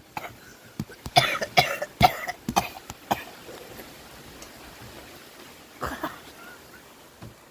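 A person coughing: a quick run of about five short, harsh bursts over two seconds, then one more about three seconds later.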